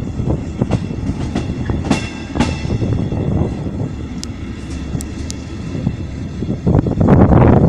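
Train wheels running over station trackwork, heard from the carriage: irregular clicks as the wheels cross rail joints and switches, over a steady rumble. A louder rush of noise swells near the end.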